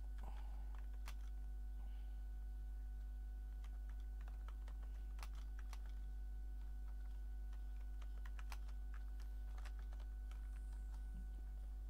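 Typing on a computer keyboard: irregular keystroke clicks, sparse at times and in quick runs at others, over a steady low hum.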